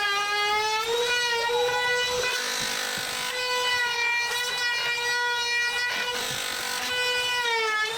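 Electric power tool motor whining steadily while cutting or working MDF, its pitch sagging briefly under load near the start and again near the end before recovering.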